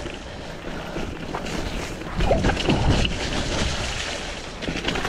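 Wind buffeting the microphone over the rumble and rattle of a Trek Marlin 6 mountain bike rolling along a dirt trail, louder about two seconds in.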